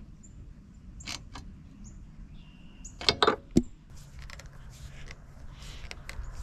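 Hand tools clicking and tapping on the metal of a Humvee's windshield frame: a socket turning a grease fitting into a threaded hole, then a screwdriver working the frame. A cluster of sharp metallic clicks comes a little after three seconds, with softer scattered ticks around it.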